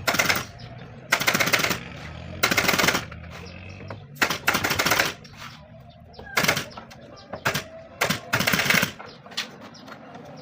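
Pneumatic upholstery staple gun firing in rapid bursts, seven rattling volleys of about half a second each, spaced irregularly, as fabric is stapled onto a chair frame.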